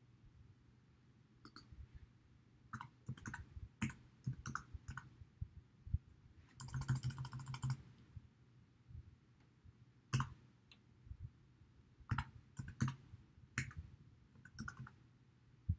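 Keystrokes on a computer keyboard: irregular separate taps, with a quick run of key presses about seven seconds in.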